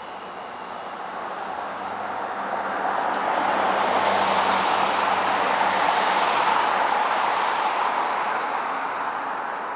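A motor vehicle driving past on the street: tyre and engine noise swells, is loudest about four to six seconds in, then fades away.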